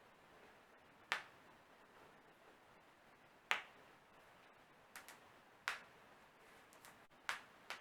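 Toe joints being cracked by hand, giving about seven sharp, brief pops spaced one to two seconds apart, two of them in quick succession about five seconds in.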